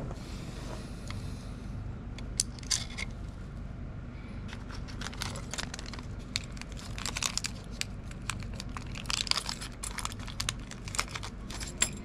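Small clicks, taps and rattles of plastic and metal parts as a Zhiyun Crane M3 gimbal is handled and its plate taken off, over a steady low hum. A few clicks come about two seconds in, and they turn frequent from about the middle on.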